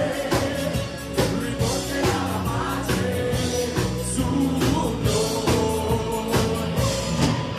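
Live pop-rock band playing an upbeat song: a steady drum-kit beat of about two hits a second with electric guitar and bass, and a girls' vocal group singing over it.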